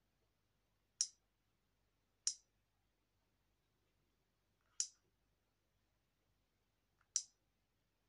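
Four sharp, short clicks a second or two apart, one with each tap on the Alcatel OT-880's touchscreen menu.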